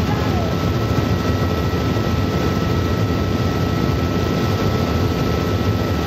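Helicopter in flight, its engine and rotor making a steady, unchanging drone with a faint high whine over it.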